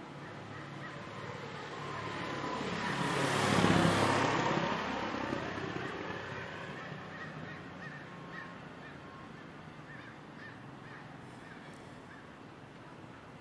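A motor vehicle drives past. Its sound swells to a peak about four seconds in, then falls in pitch and fades as it moves away.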